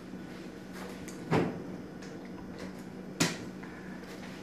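Two knocks about two seconds apart as small things are set down on a wooden dining table, over a steady low hum.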